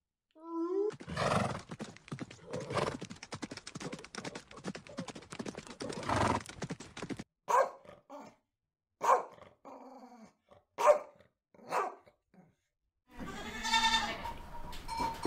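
A short rising call, then several seconds of rough, rasping animal noise. Next a Shar-Pei barks, a series of single barks about a second apart. Near the end a goat bleats.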